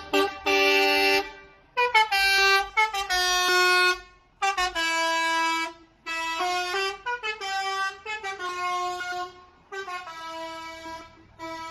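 Bus telolet horn, a multi-tone air horn, played by the driver as a tune: a string of loud held notes stepping up and down in pitch, with short breaks between phrases.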